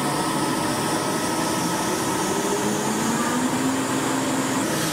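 Steady machine hiss and hum from pipe-welding equipment at work on steel pipe joints, with a faint tone rising slowly near the middle.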